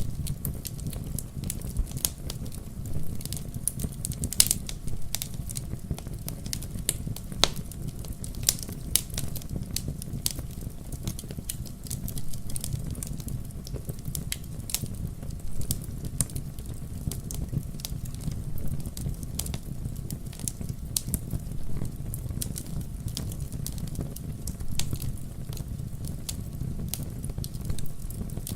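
Wood logs burning in a fireplace, crackling with frequent, irregular sharp pops over a steady low rumble.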